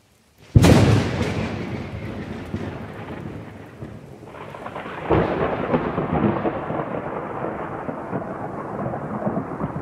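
Thunder: a sudden loud crack about half a second in that rolls away slowly, then a second rumble swelling up a few seconds later and rolling on.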